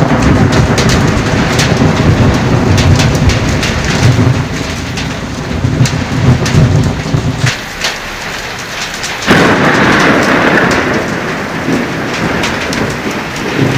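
Hail and heavy rain pelting down, with many sharp clicks of hailstones striking amid the steady hiss of rain. A deep low rumble runs under it and stops about seven and a half seconds in, and the downpour swells again about nine seconds in.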